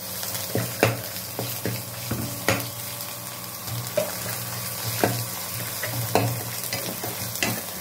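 Ground gongura paste sizzling in hot tempering oil in a kadai while a steel ladle stirs it, with a scrape or knock of the ladle against the pan every second or so.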